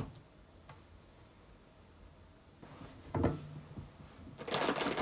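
Rummaging for a snack: a soft knock about three seconds in, then a plastic snack packet crinkling near the end.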